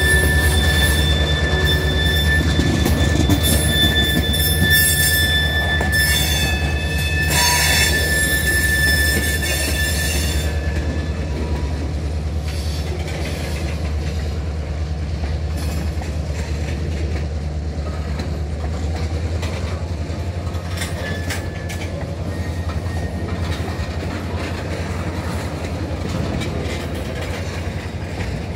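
Freight train tank cars rolling past: a steady low rumble of wheels on rail, with a thin high wheel squeal for roughly the first ten seconds and a brief louder screech about seven or eight seconds in, then scattered clicks.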